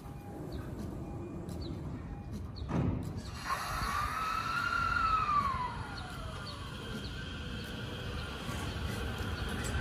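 JR E231-series electric commuter train starting to pull away from the platform. There is a short sudden noise about three seconds in. Then a whine rises and falls in pitch over about three seconds as the motors take up power, over the low rumble of the train getting moving.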